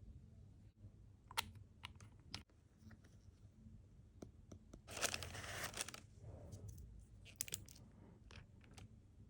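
Unboxing a package: faint scattered clicks and taps of the packaging being handled, with one louder burst of wrapping crinkling about five seconds in.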